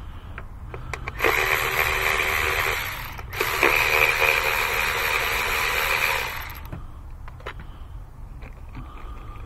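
Milwaukee cordless electric ratchet running in two bursts, about two and three seconds long with a short pause between, backing out an ignition coil's 8 mm hold-down bolts on a 1.6-litre EcoBoost engine. A few light clicks follow once the motor stops.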